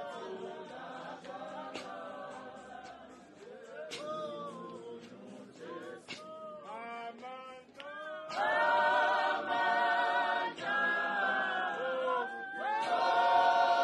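Church choir singing a gospel hymn. The singing is quieter at first, then the full choir comes in much louder about eight seconds in.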